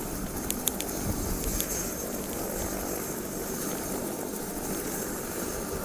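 Parked helicopter running on the ground: a steady engine and rotor noise with a faint high whine.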